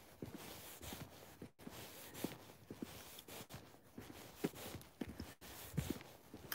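Footsteps of a person walking at a steady pace on a wet tarmac lane, landing about twice a second.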